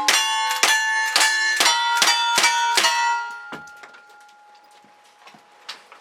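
Rapid gunfire at about four shots a second, each hit ringing a steel target with a bell-like clang. After about three and a half seconds the shots stop and only a few faint clicks remain.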